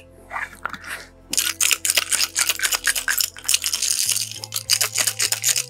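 A 12-speed bicycle chain being shaken in a glass mason jar of denatured alcohol, rattling and clinking against the glass in quick, dense strokes from about a second in. This is a rinse to strip the mineral-spirits residue before waxing.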